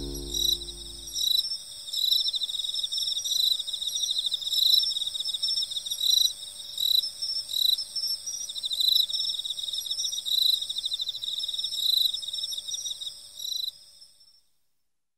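Insects chirping in a steady rhythm of high repeated chirps, about one to two a second, over a constant high ringing; a soft music track fades out in the first second or so, and the chirping stops abruptly near the end.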